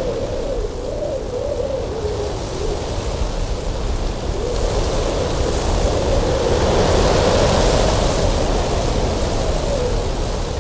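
Strong cold wind blowing steadily with a deep rumble and a wavering, moaning whistle. A gust builds about halfway through, adding hiss, and eases again near the end.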